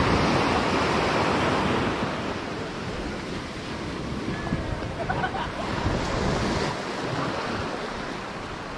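Small ocean waves breaking at the shoreline and washing up a sandy beach. The surf is loudest in the first couple of seconds as a wave breaks, then settles into a softer wash.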